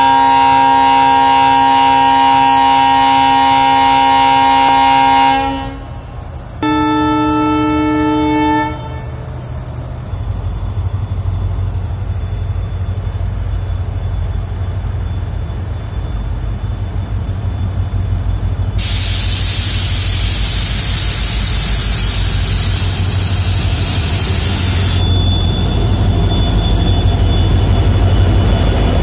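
Indian Railways diesel locomotive sounding its multi-tone horn, first in a long blast of about five seconds and then in a shorter blast of about two seconds. Its engine's low rumble then builds as it approaches and passes close by. A loud hiss lasting about six seconds starts and stops abruptly midway.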